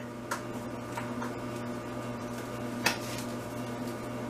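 Light taps and clicks of spice jars being handled, with one sharper click about three seconds in, over a steady low electrical hum.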